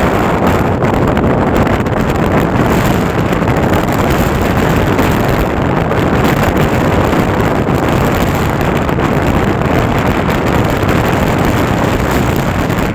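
Steady loud rush of an EMU local train running at speed, heard on board, with wind buffeting the microphone.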